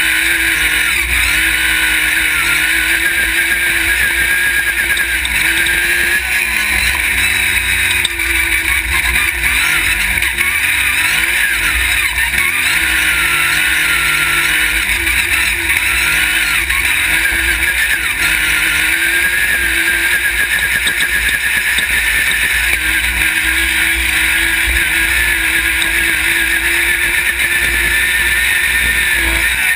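Off-road race buggy's engine running hard, its revs rising and falling as it drives along a dirt track, heard from a camera mounted on the car, with a steady rushing of wind and dirt over it.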